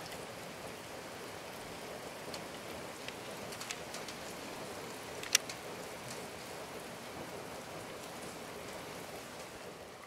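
Steady outdoor hiss with scattered faint ticks and one sharp click a little past halfway.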